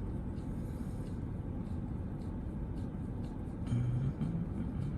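Steady low rumble of the 2013 Honda Pilot's 3.5-litre V6 running, heard from inside the vehicle, with a brief louder low sound about four seconds in.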